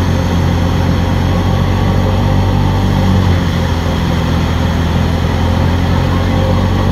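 Tractor engine running steadily under load, driving a wheat thresher whose drum and blower whir along with it as it threshes and blows out chaff. It makes a loud, even drone with a strong low hum.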